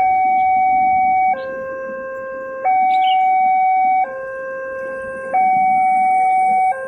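Railway level-crossing warning alarm sounding an electronic two-tone signal, alternating a higher and a lower tone about every second and a half, the higher tone louder. It warns that a train is approaching and the crossing barriers are down or closing.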